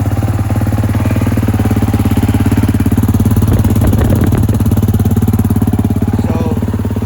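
2019 Kawasaki KX450's single-cylinder four-stroke engine running steadily at idle on its first start after a crash, briefly getting a little louder in the middle.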